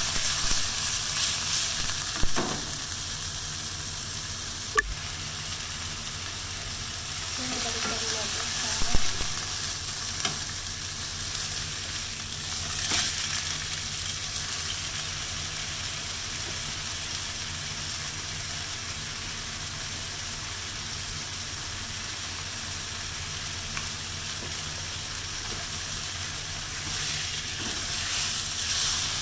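Beef steak sizzling steadily in a frying pan, with a few sharp clicks of metal tongs against the pan. The sizzle swells louder at the start as the pan is shaken, and again near the end as the steak is turned.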